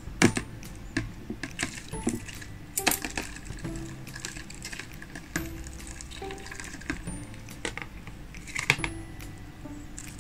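Scattered sharp clicks and clinks of metal tweezers knocking against a plastic enclosure, with faint background music underneath.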